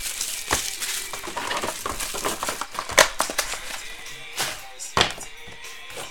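Plastic wrapping crinkling and crackling as it is pulled off and handled, with sharp snaps about half a second, three seconds and five seconds in. Background music plays under it.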